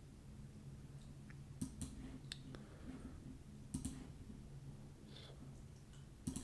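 Faint computer mouse clicks, a handful of them and some in quick pairs, over a low steady hum.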